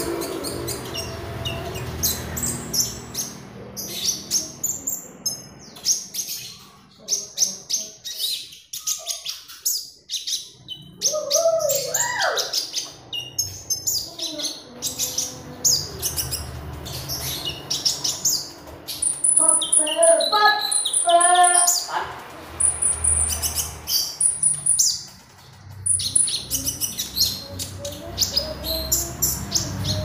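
Van Hasselt's sunbird (kolibri ninja) singing: long runs of rapid, high-pitched chirps and twitters, broken by a couple of lower whistled phrases midway.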